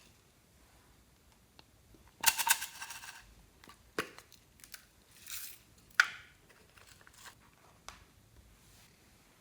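Slime being pressed and squeezed by hand: a short burst of crackling a couple of seconds in, then a few sharp pops and softer squelches.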